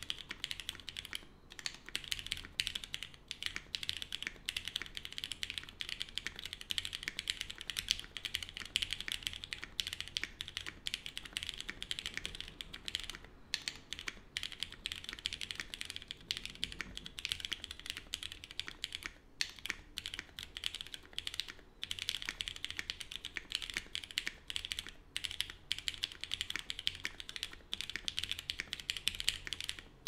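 Fast, continuous typing on a custom keyboard with lubed, retooled Cherry MX Black linear switches in a polycarbonate plate, capped with GMK doubleshot ABS keycaps: a dense run of key clacks with a few brief pauses.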